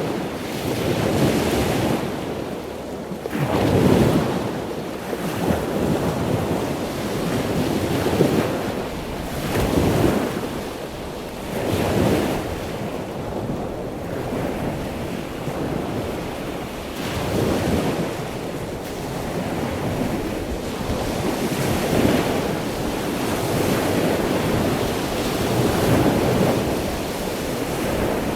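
Ocean surf: waves breaking and washing in, swelling and easing every couple of seconds over a steady rush of wind.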